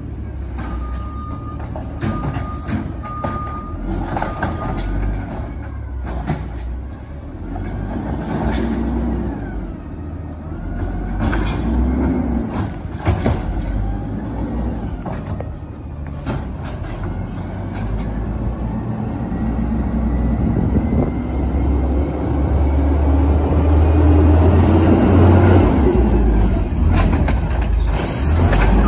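Diesel engine of a 2007 American LaFrance Condor garbage truck running, with its reversing beeper sounding in the first few seconds as it backs away. Later it drives forward and comes close, and the engine's low rumble grows louder near the end.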